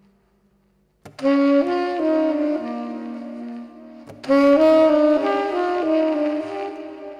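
Tenor saxophone playing a slow solo melody: after about a second of silence it comes in sharply with a phrase of moving notes, and a second loud phrase starts about four seconds in, with earlier notes lingering beneath the new ones.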